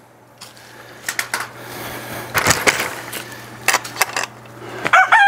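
Knocks and rattles from the wooden-framed wire gate of a chicken run being pulled shut and latched, loudest about two and a half seconds in. Near the end a rooster starts to crow.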